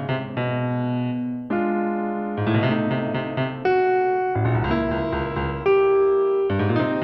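Background piano music: struck chords and a melody of sustained notes changing every second or so.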